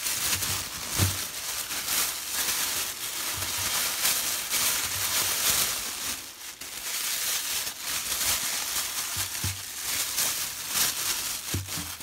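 Thin plastic shopping bag crinkling and rustling as hands unwrap it: a continuous run of crackly rustles.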